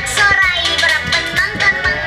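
A children's song with a sung melody and a steady beat, with children's voices singing.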